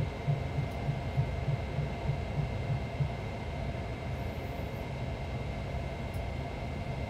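Boeing 737NG simulator's landing-rollout sound: steady engine noise with both thrust reversers deployed, over a low rumble with regular thumps about three a second. The thumps fade out about three seconds in as the aircraft decelerates.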